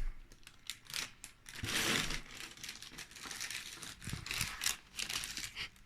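Food wrapper being handled: crinkling and rustling with many irregular clicks, loudest in a longer rustle about two seconds in.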